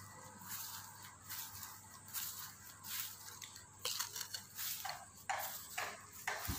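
Footsteps swishing through lawn grass, irregular and about two a second, with the louder steps in the second half.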